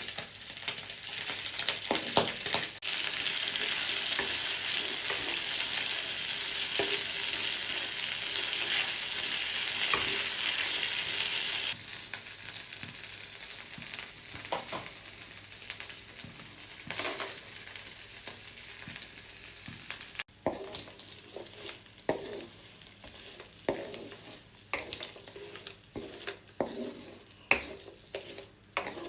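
Food frying and sizzling in a pan while being stirred, with the spatula scraping and knocking against the pan. The sizzle is loud for about the first twelve seconds, then quieter, with more scattered scrapes and knocks.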